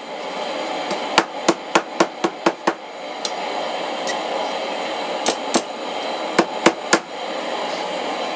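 Hammer striking a small forged steel J hook on an anvil, straightening it with light blows. There is a quick run of about seven strikes a second in, then five more spaced strikes later. A steady rushing noise runs underneath.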